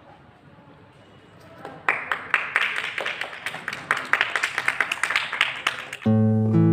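Group of people clapping, starting about two seconds in and lasting about four seconds. It is cut off abruptly near the end by strummed acoustic guitar music.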